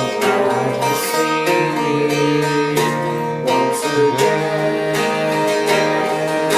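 Acoustic guitar strumming chords in an instrumental passage of a folk song, played live.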